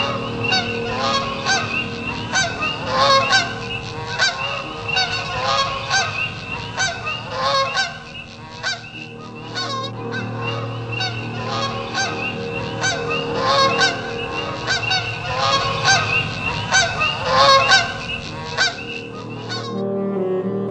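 A big flock of snow geese calling, a dense chorus of short, overlapping high-pitched honks that cuts off suddenly near the end.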